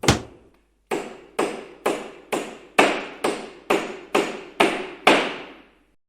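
Hammer striking wood: one blow, a short pause, then about ten steady blows at roughly two a second, each ringing briefly before the next. The blows stop near the end.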